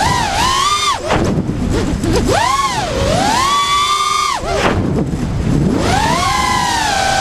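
Brushless motors of an LS210 FPV mini quadcopter whining in rising and falling pitch as the throttle is worked through turns and dives. A rough rumble of wind on the onboard microphone lies under the whine.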